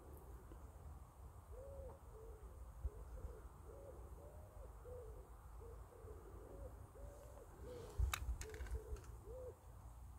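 A run of soft hooting calls, short rising-and-falling notes about two a second, over a low wind rumble on the microphone. A sharp click about eight seconds in.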